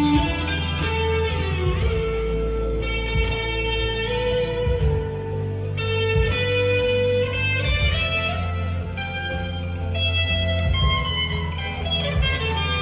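Squier Deluxe Stratocaster electric guitar with crunchy overdrive through its Duncan Designed pickups, playing held, sustained lead notes and short phrases over a backing track with bass and drums.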